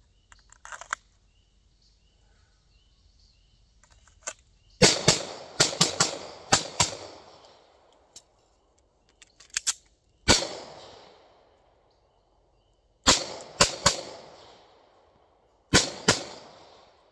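Sig Sauer P365-series pistol firing: a quick string of about six shots about five seconds in, then a single shot, a string of three and a final pair. Each report rings out with an echo that dies away within about a second. A few light clicks come just before, near the start.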